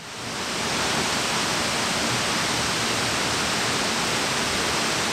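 Waterfall, a steady rushing of falling water that swells up over the first second and then holds even.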